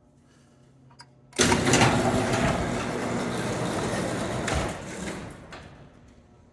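Garage door opener running as the sectional door moves on its tracks. It starts suddenly after a light click, runs loud for about three seconds, then tapers off.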